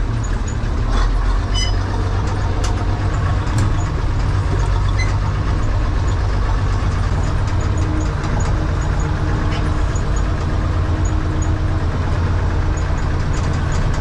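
Bizon combine harvester's diesel engine running steadily under way, a loud low drone with a few short knocks and rattles in the first few seconds.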